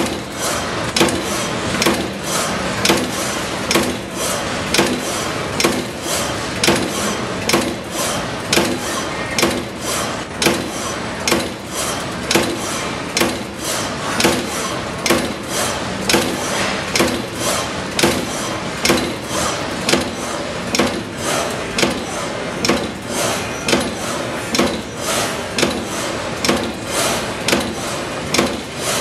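Amada Pega 357 CNC turret punch press punching sheet metal: a steady run of sharp strikes, about two a second, over the continuous running noise of the machine.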